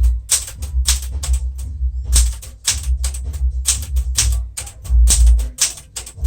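Typebars of a 1975 Smith-Corona Galaxie Twelve manual typewriter striking one after another as the alphabet is typed out letter by letter, about three to four strikes a second with a short pause about two seconds in. Music with a deep bass line plays underneath.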